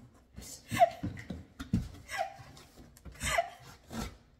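Cardboard box being handled and its flaps pulled open, with soft knocks, mixed with a woman's short wordless vocal sounds, about three of them falling in pitch.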